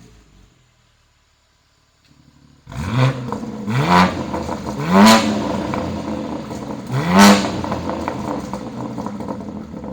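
BMW G80 M3's S58 twin-turbo straight-six with a Valvetronic cat-back exhaust starting up a few seconds in with a flare of revs. The throttle is then blipped three times, with quick rising revs, between stretches of loud idle.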